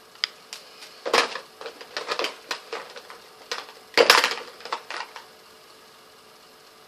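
Plastic makeup palette cases being handled: a string of clicks and clattering knocks, loudest about a second in and again about four seconds in, stopping about five seconds in.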